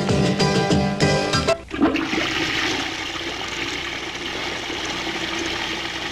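Music with a rhythmic beat cuts off about a second and a half in. A toilet flushing follows, a steady rush of water.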